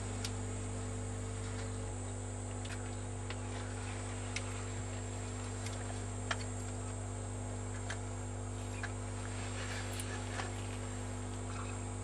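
A steady low hum runs under a faint, even high-pitched insect trill, with scattered small clicks.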